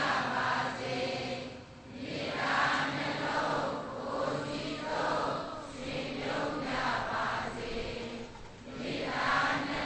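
A large congregation of Buddhist devotees chanting together in unison. The many voices rise and fall in phrases of a second or two.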